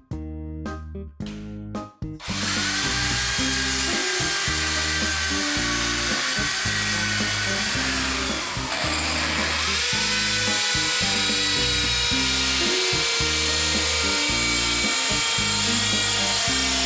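Background music with a steady beat. Over it, an electric power tool's motor starts about two seconds in and runs at high speed. It winds down with a falling whine around eight seconds, then starts up again and runs steadily until just before the end.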